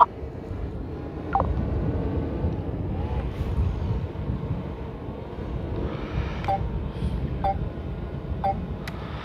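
Steady low rumble of wind and traffic noise. From about six seconds in, a short two-pitched beep repeats about once a second.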